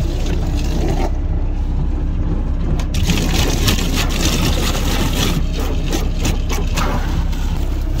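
Scrubbing and scraping on a van's windows as they are washed, over a steady low hum; the scraping grows busier about three seconds in.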